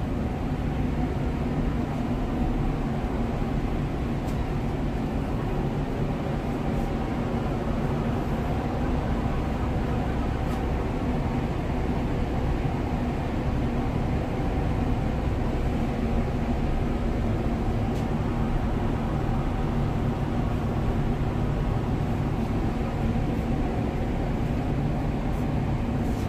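Steady low drone of a large cargo ship's engine underway, mixed with the even rush of water and air along the hull and wake.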